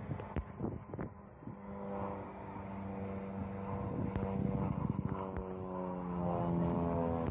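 Small propeller plane's piston engine droning in flight, a steady pitched hum whose pitch slowly drifts lower in the second half as the plane tumbles. A few handling knocks come in the first second and a half.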